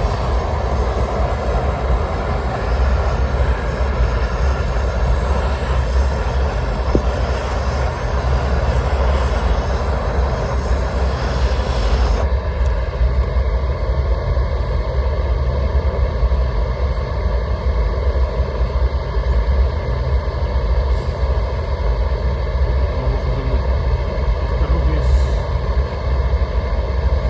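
Propane roofing torch burning steadily while heating torch-down roofing patches; its higher hiss drops off sharply about twelve seconds in.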